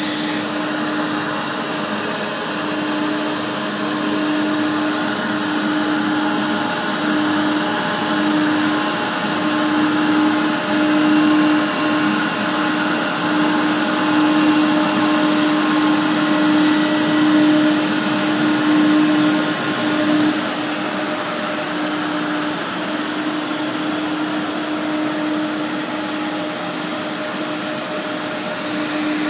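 Boeing 777's twin jet engines at taxi idle: a steady whine with a strong hiss. It grows louder as the aircraft passes close, then eases off a little after about twenty seconds.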